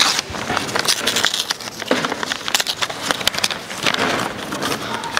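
Light, irregular clapping from an audience.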